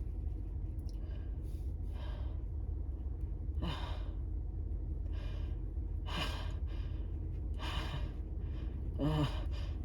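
A person's gasping breaths building up to a sneeze: a dozen or so short, sharp inhales and exhales, some with a voiced "ah" edge, the loudest about nine seconds in, over a steady low hum.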